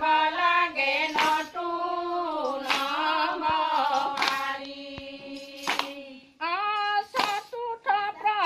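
A group of women singing an Assamese devotional naam in unison, with hand claps keeping time about every second and a half. The singing breaks off briefly about six seconds in, then starts again.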